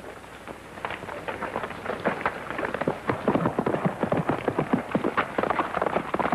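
Hoofbeats of two horses on a packed-dirt street: a rapid, irregular clatter of clops that starts about a second in and grows denser and louder as they are ridden off.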